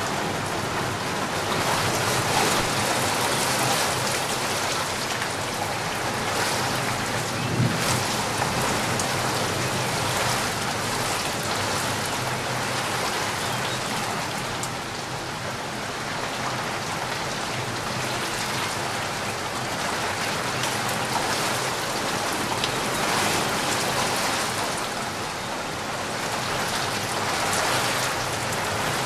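Steady rain falling, an even hiss of drops that swells and eases slightly in loudness.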